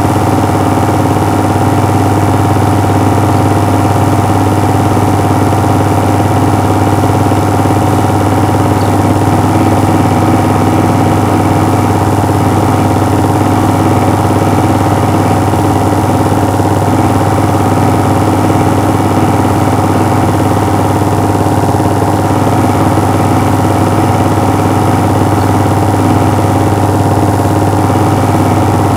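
Film projector running steadily: a constant motor hum and mechanism drone that does not change.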